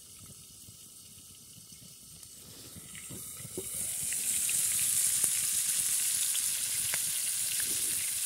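Chicken drumsticks frying in a lidded pan over a wood-fired camp stove: a steady sizzle with scattered pops. It comes in about three seconds in and grows quickly to a steady level.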